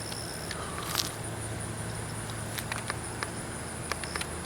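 Insects chirring in a steady, high-pitched pulsing chorus. A few light clicks are heard, with a slightly louder one about a second in.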